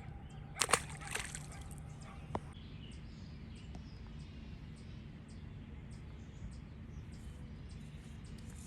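A short splash of water just under a second in, as a small bass is dropped back into the water, followed by a couple of smaller splashes. After that, only steady low background noise.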